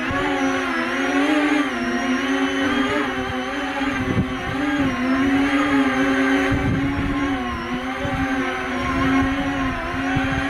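E-flite Convergence VTOL hovering in tricopter mode: its three electric motors and propellers whine steadily, the pitch wavering up and down as they hold the model against gusty wind. Low wind rumbles on the microphone come now and then.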